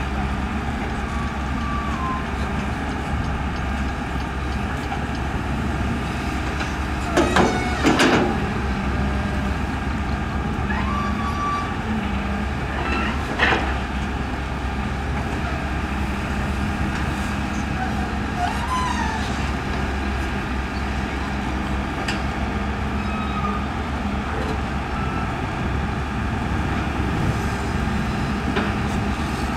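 Excavator diesel engine running steadily under hydraulic load with a low hum throughout. A short cluster of sharp, louder sounds comes about seven to eight seconds in, and a single one near the middle.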